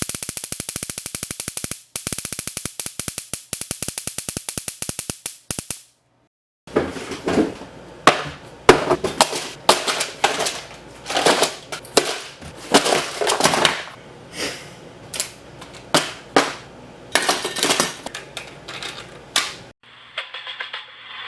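Taser crackling: a very fast, continuous train of electric snaps for about six seconds, with one short break about two seconds in. After a brief gap come irregular loud snaps. Quieter music starts near the end.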